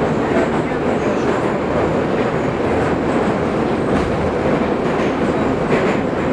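Metro train running, heard from inside the moving carriage: a steady, loud noise that does not break or change.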